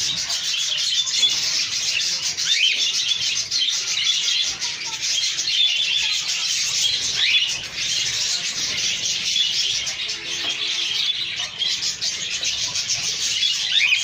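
Caged cockatiel chirping in a steady stream of high chatter, broken by a few short rising calls.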